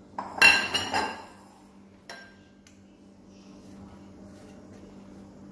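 Kitchen dishes clinking: a quick cluster of ringing clinks in the first second as a bowl is taken from a steel tray and set down, then one more clink about two seconds in, as the steel mixer jar touches a glass bowl.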